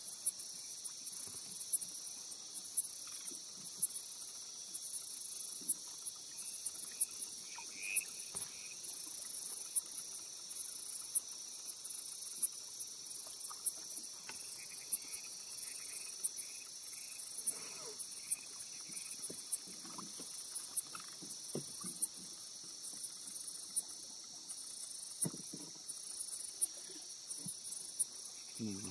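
Night insect chorus in the rainforest: a steady high shrill with a sharp click about once a second, and a few soft knocks now and then.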